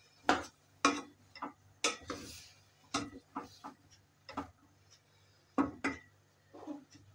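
Wooden spoon knocking and scraping against a stainless steel pot as mushrooms are stirred, about ten sharp knocks at uneven intervals.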